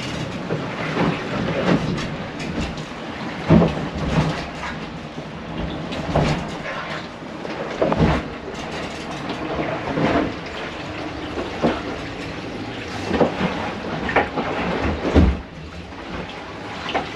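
Catamaran hull working through rough seas: a steady rush of water and rattling motion noise with irregular knocks and thuds as the boat pitches into the waves. The hull is taking on sea water.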